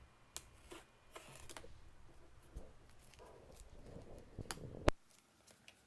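Cardboard product packaging being handled: rustling and scraping with scattered sharp clicks and taps, the loudest click about five seconds in.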